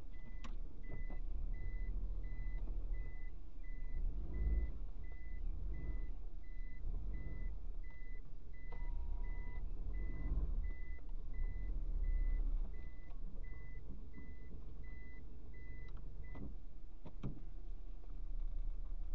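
A car's reverse-gear warning beeping inside the cabin: one high-pitched beep repeating about twice a second over the low rumble of the engine and tyres on gravel, stopping about 16 seconds in, followed by a couple of sharp clicks.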